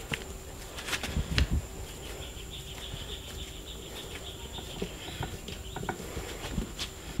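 Hands pressing and working a thick coil of wet clay onto the wall of a large coil-built jar, with a few dull thuds about a second in and soft knocks after. Birds chirp faintly in the background.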